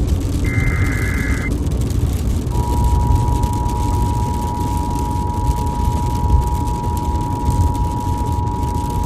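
Emergency Alert System activation. First the last of the SAME header data bursts, a harsh digital screech lasting about a second. About a second later the two-tone EAS attention signal (853 and 960 Hz) starts and holds steady, over a constant low rumbling noise.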